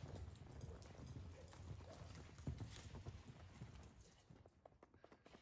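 Faint hoofbeats of horses and a steer running in soft arena dirt, a run of low thuds that dies away about four seconds in as the horses pull up.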